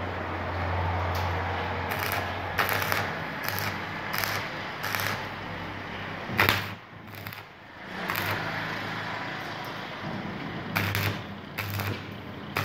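Electric arc welding of steel gate scrollwork: short tack welds, each a sputtering crackle over a low buzzing hum, starting and stopping several times with a short lull a little after the middle.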